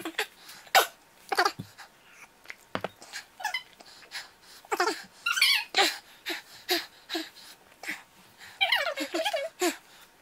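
A man's sharp breaths and short whimpering moans as his mouth burns from extra-spicy fire noodles, coming in quick bursts with a couple of longer moans about halfway and near the end.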